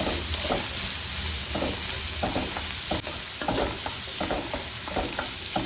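Chopped onions sizzling in hot oil in a kadai, with a spoon scraping and stirring them at an irregular pace; they are frying toward translucent.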